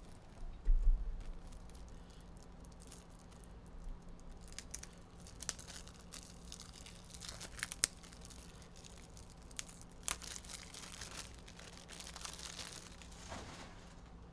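Packaging crinkling and tearing as it is handled close by, with scattered small clicks and rustles. A low thump about a second in.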